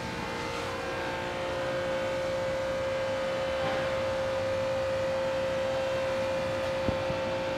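Steady mechanical hum with a constant tone over a low noise haze, and a single sharp click near the end.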